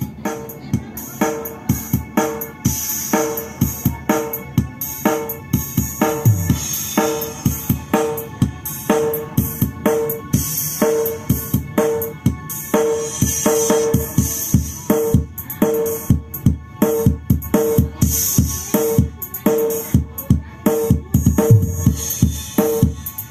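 Music with a steady drum beat played from a phone over Bluetooth through a Sunbuck AV-MP326BT echo mixer power amplifier and a pair of STX speakers, being tested. The music starts right at the beginning and keeps an even pulse of about two beats a second.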